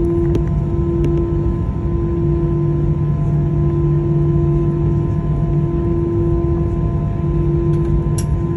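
Airbus A319-112's CFM56 turbofan engines running at low power during taxi, heard inside the cabin as a steady hum with several clear whining tones over a low rumble.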